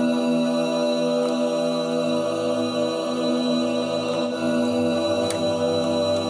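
Sustained samples of a man's own sung voice layered into a choir-like chord, played by raising and lowering channel faders on a mixing console. The held notes change about two seconds in, when a lower note joins, and again near five seconds.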